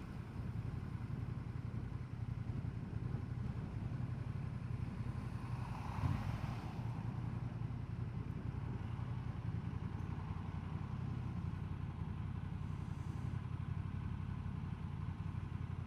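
Honda Transalp XL750's parallel-twin engine running at steady, low revs, with a steady rush of wind noise.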